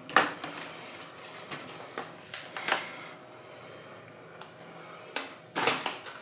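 Eggs frying in a steel pan with a steady low sizzle, broken by several sharp knocks and clatters of kitchen handling. The loudest knocks come just after the start and near the end.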